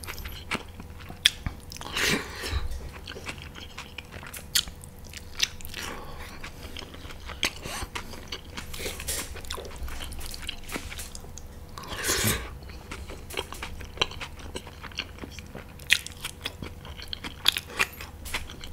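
A person eating close to the microphone: chewing with many short, wet mouth clicks and smacks, and two longer, louder noisy sounds about two seconds in and about twelve seconds in.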